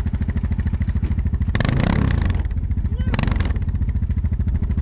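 An ATV engine idling steadily with a fast, even firing pulse, with two short rushes of noise over it about one and a half and three seconds in.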